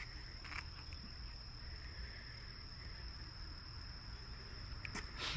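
Faint, steady high-pitched chorus of night insects, with a couple of brief taps about half a second in and near the end.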